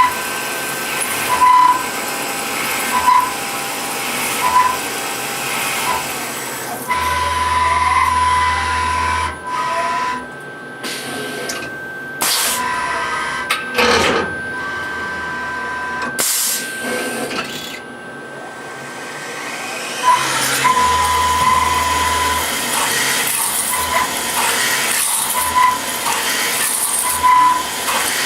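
Skyfire VMC2 benchtop CNC milling machine running, its axis motors whining in short repeated moves about every second and a half, with two longer moves that bring a deeper hum. In the middle stretch there are hissing, uneven noises and clicks.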